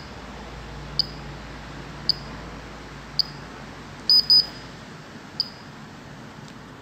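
PhoCheck Tiger PCT-LB-00 handheld VOC gas detector beeping during start-up: short high beeps about once a second, with a quicker cluster of louder beeps a little past four seconds in and one more single beep after it.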